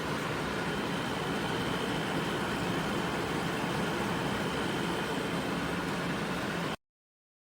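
Portable air conditioner running with a steady whooshing hum and a faint high whine; the sound cuts off abruptly near the end.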